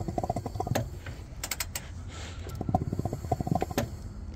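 Ratchet clicking in bursts of about a second with short pauses, turning a Detroit Series 60 diesel over slowly by hand to bring the piston up toward top dead center.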